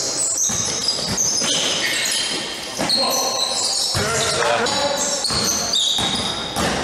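Basketball game sounds on a wooden sports-hall court: the ball bouncing, trainers squeaking sharply on the floor, and players calling out.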